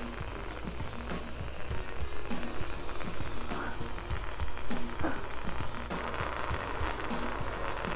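Aerosol can of whipped cream spraying out cream in a continuous hiss.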